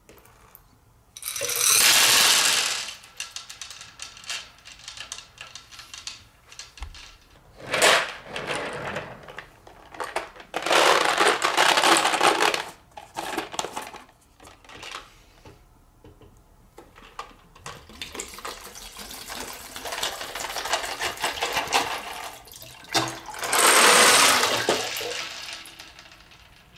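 Glass marbles tipped from a glass bowl into a glass tank of water, splashing and clinking, followed by further bursts of splashing and rattling as a clear plastic toy car full of small plastic balls is worked through the water and the balls spill out and sink. The sound comes in several separate loud bursts with quieter clicks and clatter between them.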